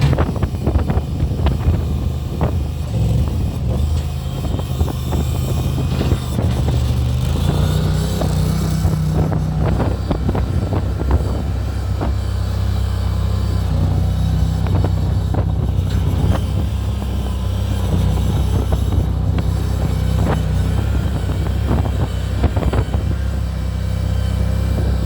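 Mini skid steer loader's engine running, its pitch stepping up and down a few times, with scattered knocks and clanks.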